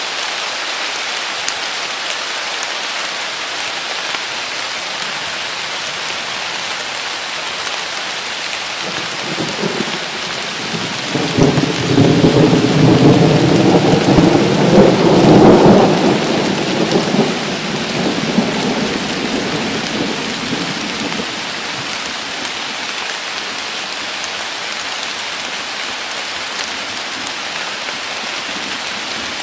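Steady heavy rain falling on leaves, with a long rumble of thunder that builds about a third of the way in, peaks near the middle and slowly dies away.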